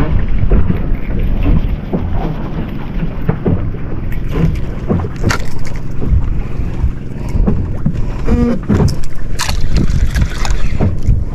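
Wind buffeting the microphone in gusts, with a few light knocks and clicks scattered through it.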